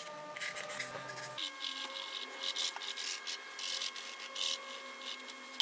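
Pencil scratching across a plywood disc, drawing lines in short repeated strokes.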